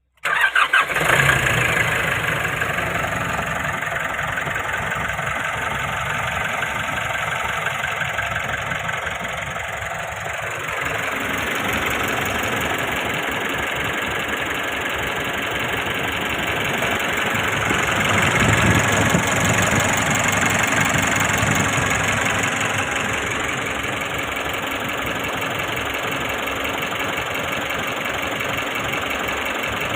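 Nissan NV350 Urvan van's engine idling steadily after its oil change, getting a little louder for a few seconds about two-thirds of the way through.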